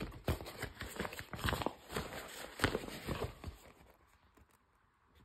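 Nylon rain cover with a clear plastic window rustling and crinkling as it is unfolded and handled, in irregular scuffs that die away after about three and a half seconds.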